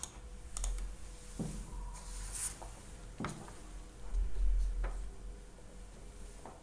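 A few scattered computer mouse clicks at a desk, over a faint steady hum, with a low rumble about four seconds in.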